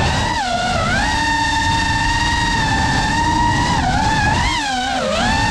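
FPV quadcopter's brushless motors whining, the pitch dipping and sliding back up with throttle changes, held steady for a few seconds in the middle, then wavering and dipping again near the end, over a low rush of air.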